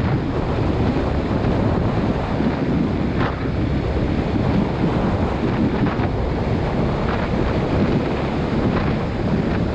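Wind rushing and buffeting over the camera microphone on a moving motorcycle, with a steady hiss of tyres on a wet road underneath.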